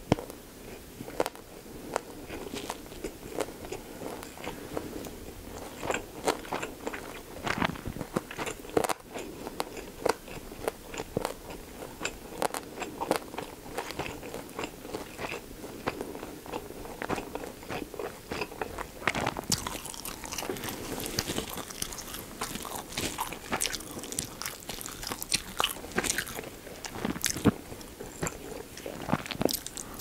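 Close-miked chewing of pork-belly gimbap, a seaweed-wrapped rice roll with lettuce and pickled radish, with many small wet clicks and crunches. The crisp crackling grows denser in the second half.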